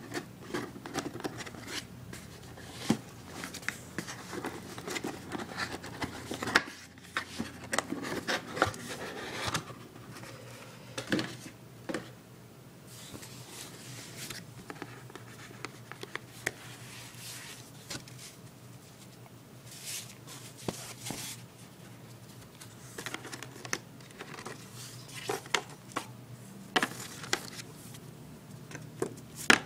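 Hands unpacking a boxed BlackBerry PlayBook tablet: scattered rustling and crinkling of packaging with small clicks and taps, over a steady low hum.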